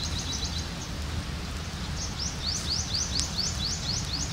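A bird singing runs of quick, rising chirp notes, about four a second: a short run at the start and a longer one from about halfway on. Underneath is a steady low outdoor rumble.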